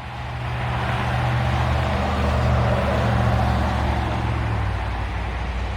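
Diesel locomotive engine running up under throttle, as in notch 3, a low steady drone that loudens over the first second or two and eases a little near the end. The shaft-driven air compressor should be building main-reservoir pressure at this speed, and it is being tested for a fault.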